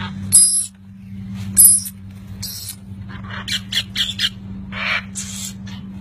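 Large parrots squawking in a series of short calls, with a quick run of about five near the middle, over a steady low hum.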